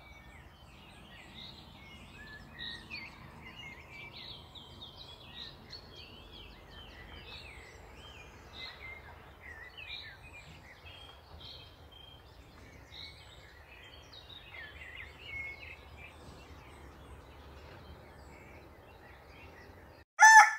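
Several songbirds singing a dawn chorus of short chirps and warbling phrases over a faint low rumble. Near the end the birdsong cuts off, and a loud rooster crow begins.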